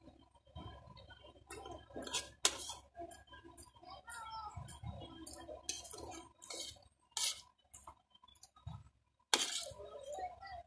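Metal spoon scraping and clinking against a ceramic plate while scooping up rice, in a string of short, irregular clicks and scrapes.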